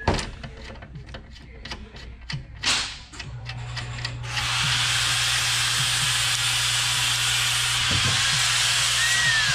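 Sharp clicks and clunks of a hand rivet-nut setter crimping riv nuts into an aluminium fan shroud, the loudest click right at the start. From about four seconds in, a steady hiss over a low hum takes over and is the loudest sound.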